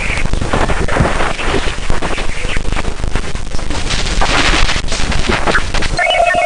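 Loud, dense crackling noise full of rapid sharp cracks, like a gunfire or explosion sound effect. About six seconds in it gives way to electronic beeping tones.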